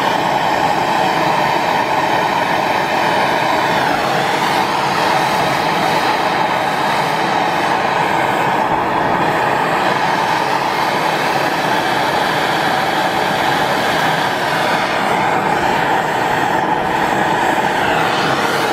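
MAP gas torch flame burning steadily with a loud, even hiss while heating a copper pipe swage joint for brazing.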